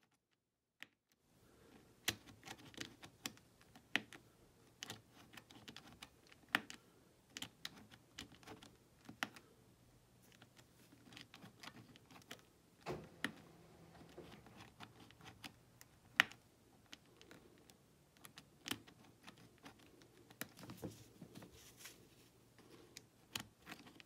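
Faint, irregular clicking and ticking from the numbered thumbwheel of an aluminium briefcase's combination lock being scrolled with a bypass tool inserted. The tool feels for the dent that marks the right digit of the combination.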